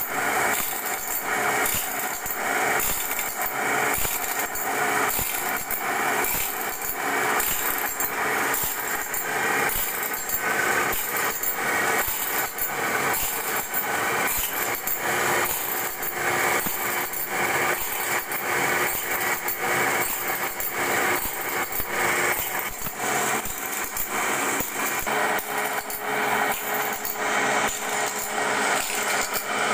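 Automatic band saw blade sharpening machine running, its abrasive grinding wheel working down the teeth of a wide sawmill band blade one after another. The grinding of stone on steel comes with a fast, even mechanical rhythm that runs steadily throughout.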